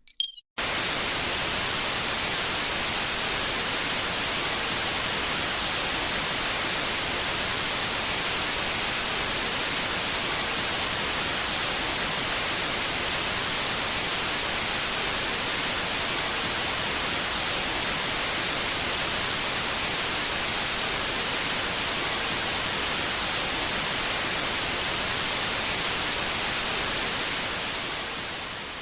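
Static sound effect: a steady white-noise hiss, strongest in the upper range, starting about half a second in and fading out near the end.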